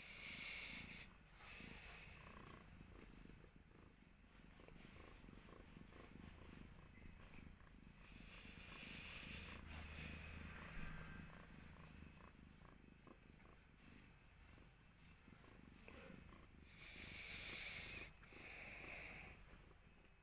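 A mother cat purring faintly and steadily while giving birth, with a few short rustles.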